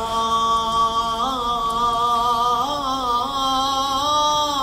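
A singer's voice holding one long, drawn-out note of a chanted Arabic poem, ornamented with small melismatic turns in pitch about a second in and again near three and four seconds.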